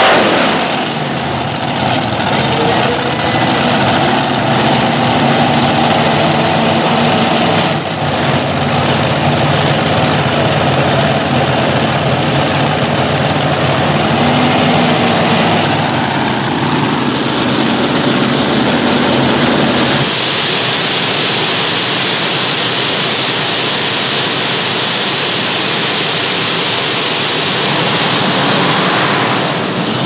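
A multi-engine modified pulling tractor running after its pull, its engines idling and blipped up now and then. About two-thirds of the way in, the sound changes to a turbine-powered modified tractor with a steady high whine that rises near the end as its turbines spool up.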